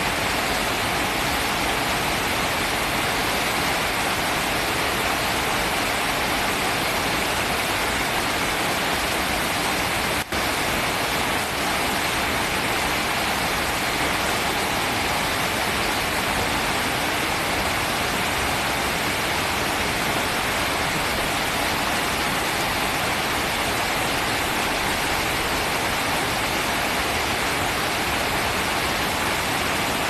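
River water pouring over a low waterfall and churning into the pool below: a steady, even rush of white water. It has one very brief dropout about ten seconds in.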